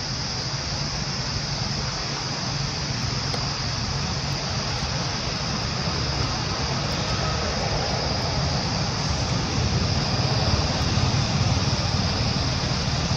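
Steady outdoor background noise: a low rumble under a constant high hiss, getting a little louder in the second half.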